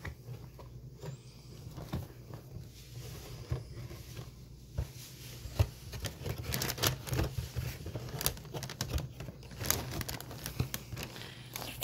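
A cardboard Froot Loops cereal box being opened and its plastic liner bag crinkled and rustled, with small knocks from handling the box. The crinkling gets busier about halfway through, over a steady low hum.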